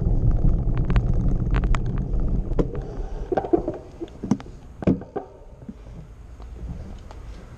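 Low rumble and wind buffeting on a bicycle-mounted action camera climbing over cobblestones. Scattered rattling clicks and knocks come through the middle. The rumble dies down about halfway through.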